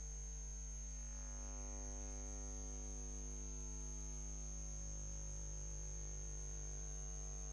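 Steady electrical hum made of many fixed tones, with a thin high whine above it and no speech.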